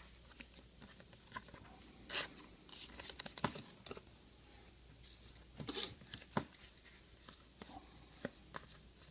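Trading cards being handled and flipped through: a scattering of short rustles, slides and light snaps of card stock, some with a papery crinkle.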